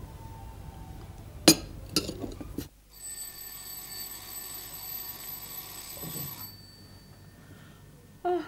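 Two sharp clicks, then an alarm clock ringing steadily for about three and a half seconds before it stops. Near the end comes a short, loud vocal sound from a woman waking, most likely a yawn.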